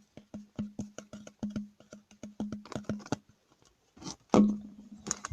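A quick run of short, light taps, about five a second, each carrying a brief low hum, then a louder knock about four seconds in.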